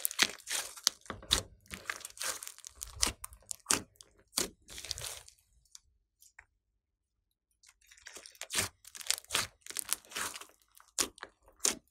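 Glossy slime being squeezed, folded and poked by hand, giving runs of wet, sticky clicks and pops as air pockets burst. There is a pause of about two seconds in the middle before the squishing starts again.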